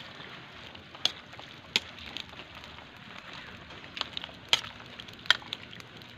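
A metal ladle stirring a bubbling coconut-milk stew in an aluminium pot over a wood fire. A low steady hiss runs under five or so sharp clicks and knocks, spaced irregularly over several seconds.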